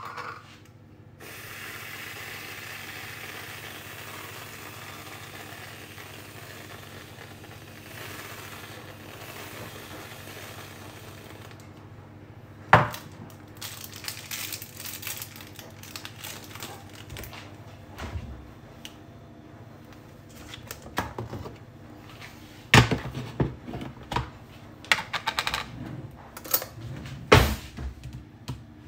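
An aerosol can of whipped cream sprays onto a mug in one long hiss lasting about ten seconds. Then come scattered clinks and sharp knocks of a metal tin and a spoon on the counter and mug.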